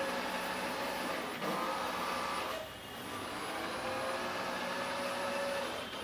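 Trifo Max Pet robot vacuum running as it mops the floor: a steady whirring hum of its motors and fan with faint whining tones. The sound dips briefly about two and a half seconds in, then comes back.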